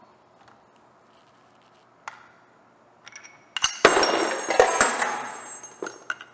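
Gears and parts of a Hewland LD200 racing gearbox's gear cluster dropping by accident onto a parts tray and the floor: a loud clatter of metal clinks and rattles with ringing, lasting about two seconds and fading out. A single sharp click comes about two seconds in, and a few small clinks come just before the clatter.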